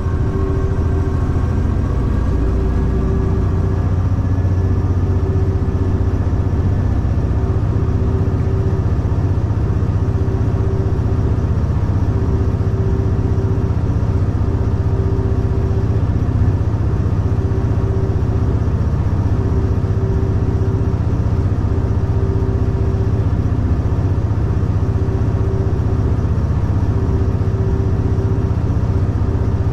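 Cab noise of a V/Line A class diesel-electric locomotive under way: the diesel engine runs with a steady, deep drone. A mid-pitched hum keeps coming and going, and a faint whine rises over the first few seconds.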